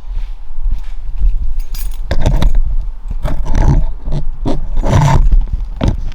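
Supercharged Scion FR-S flat-four engine with a new HKS equal-length header, revved cold in a series of quick throttle blips, three of them loudest, and falling back toward idle between them. It is running rich on a tune that still needs adjusting.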